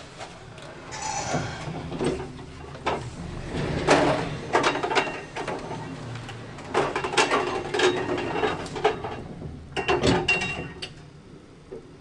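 Schindler destination-dispatch lift stopping at a floor: its car doors slide open and shut, with irregular clunks and knocks as a passenger steps out.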